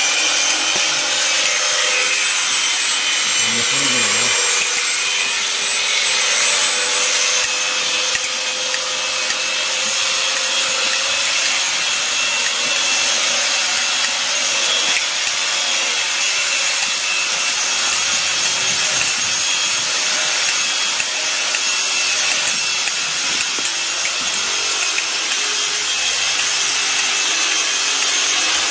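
Sheep-shearing machine handpieces running with a steady buzz as their cutters clip through the fleece of sheep.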